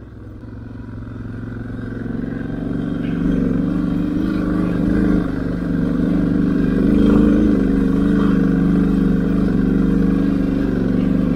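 Suzuki DR650's single-cylinder engine running under load as the motorcycle climbs a dirt two-track, heard from the bike itself; it swells over the first two seconds and then holds a steady pull with small rises and dips in pitch.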